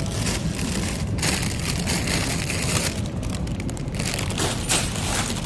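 Plastic bag of green beans crinkling and rustling as it is picked up and handled, in short noisy bursts over a steady low rumble.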